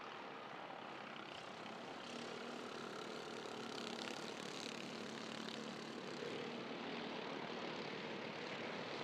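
A pack of off-road racing karts with small 265cc Subaru engines running at speed together, their engines blending into one steady drone. It grows a little louder about two seconds in.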